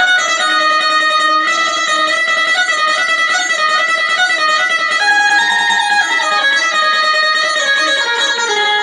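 Benjo (bulbul tarang, an Indian keyed zither) playing a Chhattisgarhi song melody: keys stop the strings while a plectrum plucks them, giving a quick, continuous run of bright, twangy notes.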